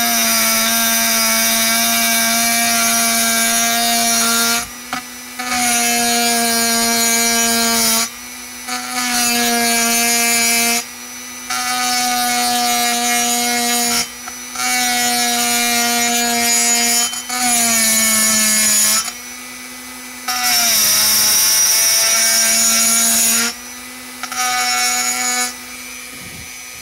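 Handheld rotary tool spinning a small abrasive stone against the port wall of an aluminium chainsaw cylinder: a steady high whine with a grinding hiss, stone-finishing the port during porting. It comes in runs of two to four seconds with short breaks between, the pitch sagging briefly at the end of some runs.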